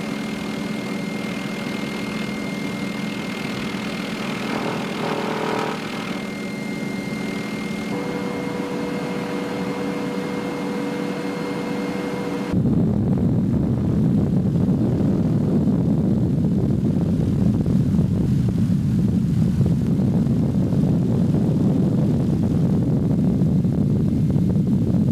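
MD 530F light helicopter in flight, its turboshaft engine and rotors running with a steady whine and hum as heard inside the cabin. About halfway through it cuts suddenly to a louder, lower rotor rumble heard from outside.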